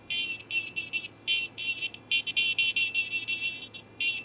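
Serio electric nail drill whining high-pitched in short, uneven bursts. A fine cuticle bit is tapped lightly along the nail edge to lift the cuticle and separate it from the nail plate.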